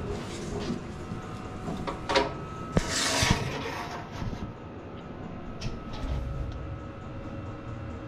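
A welded steel box being handled and knocked about: a few sharp metallic knocks about two to three seconds in and a short scraping rush just after, then lighter knocks, over a faint steady hum.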